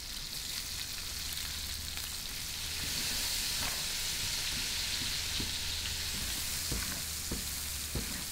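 Sliced onions and garlic sizzling in olive oil in a stainless steel pan while being stirred, with small scrapes and taps of the spoon against the pan. The sizzle grows a little louder about three seconds in.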